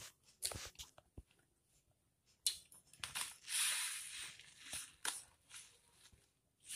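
Faint rustling and crinkling of a plastic wrapper or packet being handled, with a few light clicks in the first second.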